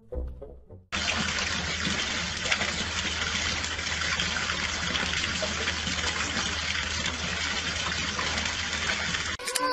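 Water pouring steadily over the stone ledge of a small garden fountain, with a low steady hum underneath. It starts abruptly about a second in and cuts off near the end.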